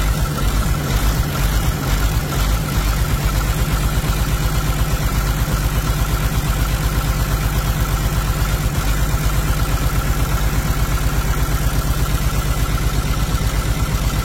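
An engine running steadily at idle, with an even, rapid pulsing throb.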